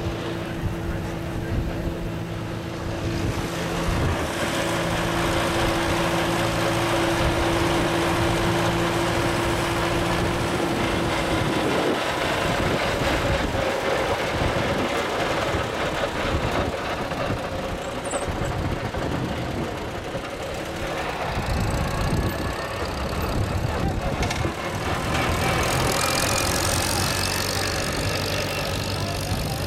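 Farm tractor engine running steadily as it tows a wooden hay wagon, with knocks and rattles from the wagon in the middle part.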